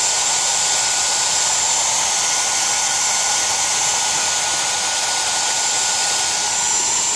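Grooming blow dryer running steadily: a constant rush of air with a thin high whine over it.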